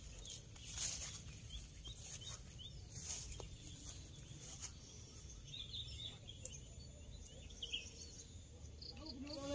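Faint outdoor field ambience with a low steady rumble, a few short bird chirps scattered through it, and an occasional light click.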